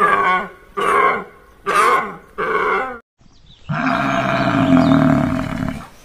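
A deer calls four times in short, evenly spaced bleats. Then a water buffalo gives one long, loud, low bellowing moo.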